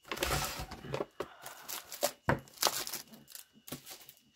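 Plastic-wrapped craft supply packages (scrapbook paper packs in cellophane sleeves and a blister-packed paper punch) crinkling and rustling as they are slid and shuffled across a desk, in uneven bursts with a couple of sharp knocks a little over two seconds in.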